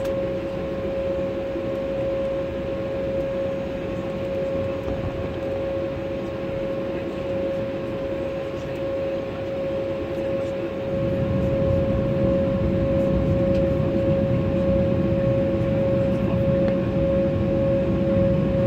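Airliner cabin noise while taxiing: a steady engine whine over a low rumble, the rumble growing louder about eleven seconds in.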